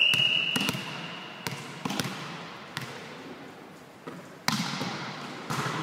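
A referee's whistle blast ends in the first moments. A volleyball is bounced on the hall floor a few times, then there is a sharp hit about four and a half seconds in as the ball is jump-served, and another hit near the end. Each impact echoes in the large sports hall.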